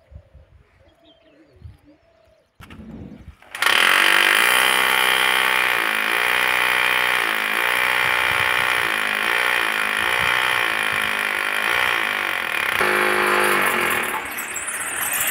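Corded electric drill boring into the concrete roof at the base of a steel pole. It starts about three and a half seconds in and runs loudly and steadily, its pitch dipping and recovering as the bit bites under load, then eases off near the end.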